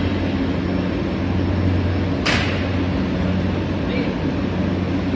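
NBR/PVC insulation sheet and pipe production line machinery running with a steady low hum, and one short sharp hiss about two seconds in.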